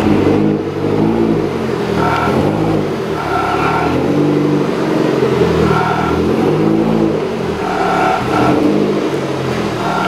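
Toyota MR2 Turbo's 3S-GTE turbocharged four-cylinder engine running and being revved, its pitch rising and falling repeatedly.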